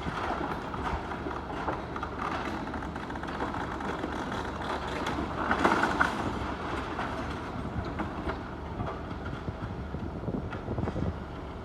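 Demolition machinery running steadily while brickwork is pulled down, with irregular clattering of falling masonry and rubble and a louder burst of clatter about six seconds in.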